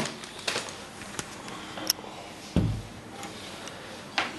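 Handling noise: scattered light clicks and knocks, with one dull thump a little past halfway.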